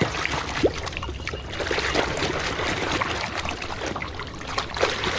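Water sloshing and trickling, with small irregular splashes and plops, as a muddy toy is rinsed clean in water.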